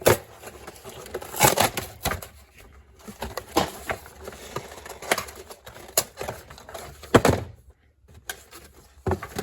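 Cardboard toy box and its packaging being handled and opened: irregular clicks, taps and knocks, with one louder knock about seven seconds in.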